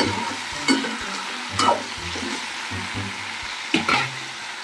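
Termite mushrooms sizzling as they stir-fry in a metal pan, with a metal spatula scraping and knocking against the pan a few times.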